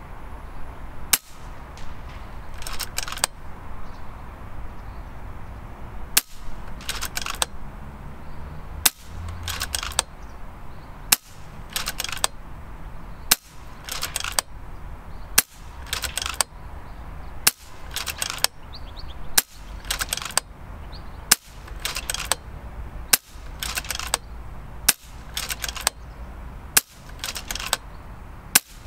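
FX Impact M3 PCP air rifle firing shot after shot, about a dozen sharp cracks roughly every two seconds, each followed by a short metallic rattle of the action being cycled for the next pellet.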